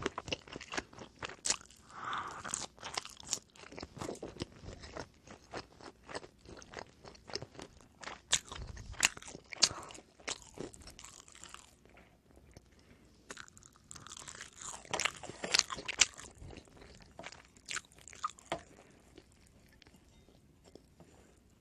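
Close-miked biting and chewing of oven-baked pizza bread: crisp crunches and crackles of the crust with softer mouth sounds, in irregular clusters, growing quieter near the end.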